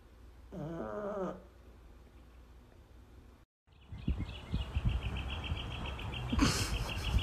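A sleeping pug gives one wavering, pitched moan lasting about a second. After a short dropout, the sound changes to a fast, steady run of high chirps over low rumbling noise, with a brief loud rush of noise near the end.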